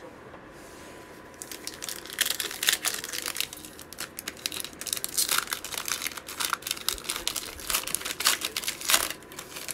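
Plastic wrapper of a Mosaic football trading-card pack being torn open and crinkled by hand. It is a dense run of crackles that starts about a second and a half in and stops just before the end.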